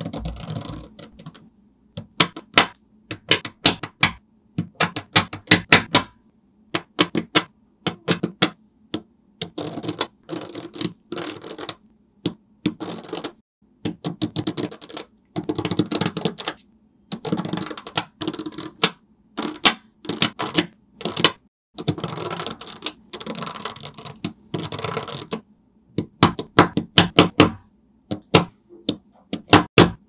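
Small neodymium magnetic balls clicking and snapping together as strings and clusters of them are laid and pressed onto a flat panel of magnet balls. The clicks come in quick runs of a second or two, separated by short gaps.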